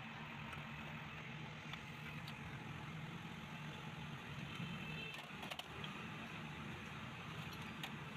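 Steady low mechanical hum in the workshop, with a few light metallic clicks, about five, five and a half and eight seconds in, as gearbox shafts and gears are set into an aluminium motorcycle crankcase half.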